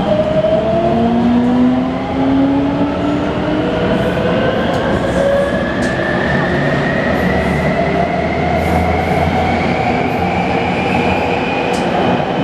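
Taipei Metro C321 train's traction inverter whining in several rising tones as the train picks up speed, over steady running and rail noise. This train's inverter is reported to be making an abnormal noise.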